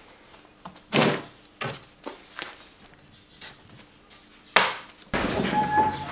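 A handful of sharp knocks and thuds, the loudest about a second in and at about four and a half seconds. Near the end a louder, steadier background sound sets in.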